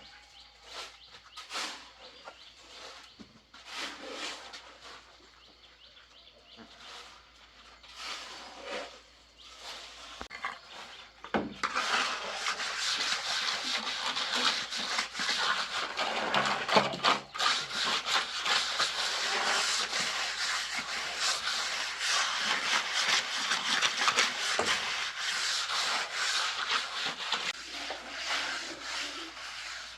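Shovel scraping and turning a heavy mix: a few separate scrapes and knocks at first, then continuous rough scraping from about eleven seconds in.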